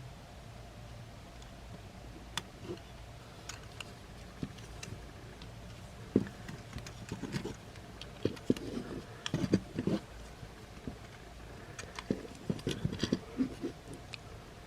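Scattered sharp clicks and taps of a hard plastic action figure being handled and cut with a cutter, with clusters of clicks near the middle and again near the end.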